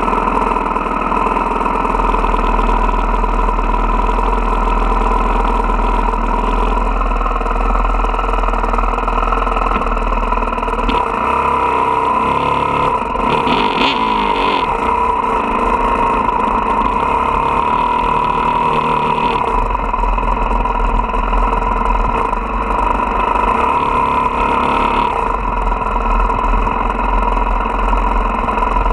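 Dirt bike engine idling steadily, heard close up, its note shifting briefly about halfway through.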